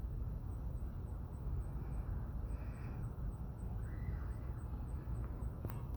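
Outdoor background: a steady low rumble, with a faint high insect chirp repeating evenly about three to four times a second.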